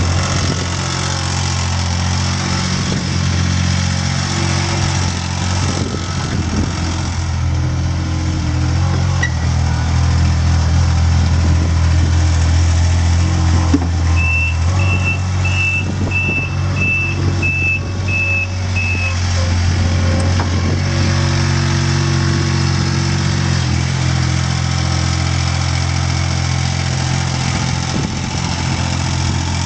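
Fiorentini S38D ride-on sweeper's Kubota three-cylinder diesel engine running steadily as the machine drives. About halfway through, a reversing alarm gives eight short high beeps, about two thirds of a second apart.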